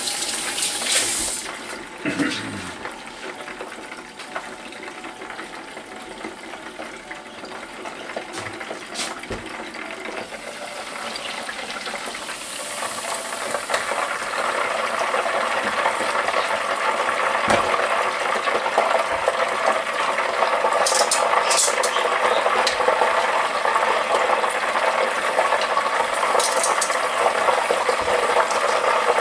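Pork chop deep-frying in hot oil in a Presto electric deep fryer: a steady sizzling crackle that grows clearly louder about halfway through, once the lid is off and the basket is lifted. A few sharp metal clicks come near the end.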